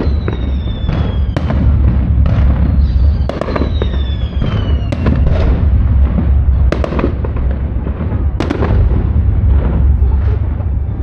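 Aerial fireworks display: a string of sharp bangs and crackles from shells bursting overhead, irregularly spaced, some close together. Two long whistles fall slowly in pitch, one near the start and one in the middle.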